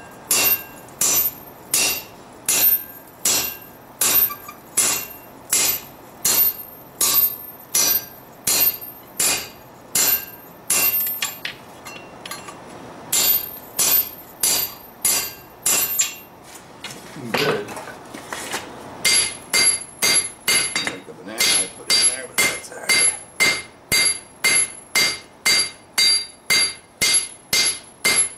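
Hand hammer striking a red-hot steel claymore blade on an anvil, drawing it out for length: steady ringing blows about two a second. The blows pause briefly twice, the longer pause about two-thirds of the way through, then carry on.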